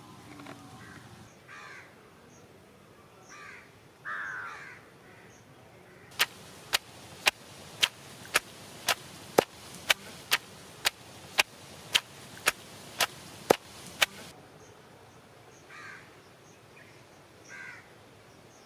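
Heavy stone pestle pounding onions in a stone mortar: about fifteen sharp knocks at roughly two a second, starting about six seconds in and stopping about eight seconds later. Crows caw a few times before and after the pounding.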